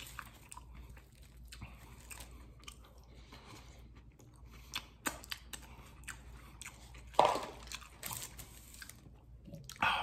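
Close-miked chewing of crispy tater tots: soft crunching and mouth noises, with two louder crunches about seven and eight seconds in.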